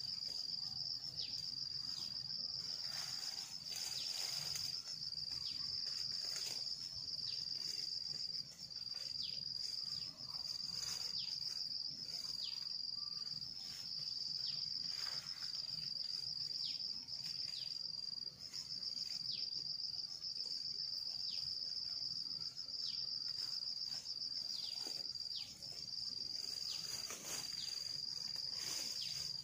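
A continuous high-pitched insect trill, steady in pitch, broken by short gaps every second or two.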